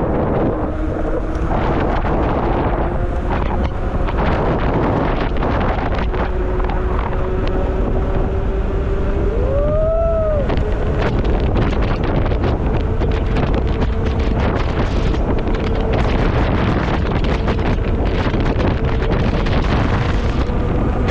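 Wind buffeting the microphone and rattling from rough ground as an electric bike descends a rough trail at speed, with a steady motor whine slowly rising in pitch. About ten seconds in, a brief squeal rises and falls.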